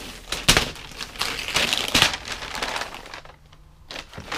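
Wrapping paper being torn off a large present: several rough ripping and crinkling bursts, the sharpest about half a second and two seconds in, then a short lull and another rip near the end.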